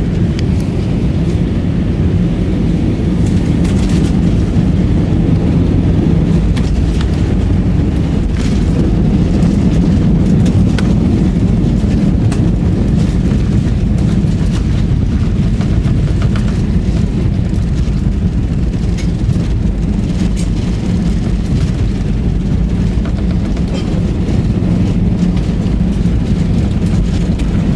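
An airliner landing and rolling out on the runway, heard inside the cabin: a loud, steady low rumble with scattered light clicks and rattles.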